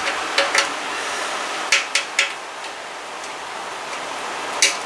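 A few short metal clicks as a bolt is turned by hand into a freshly tapped hole: two about half a second in, three around two seconds, one near the end. A steady hiss runs underneath.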